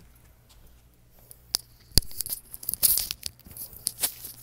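A plastic CD case being handled: quiet at first, then a sharp click about two seconds in, followed by rustling and a run of small plastic clicks.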